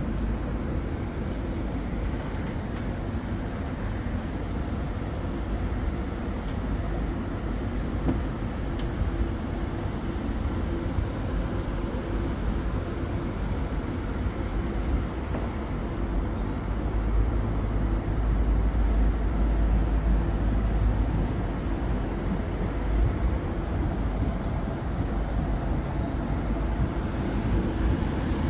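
Steady low rumble of outdoor background noise, heavier in the second half, with a faint steady hum underneath.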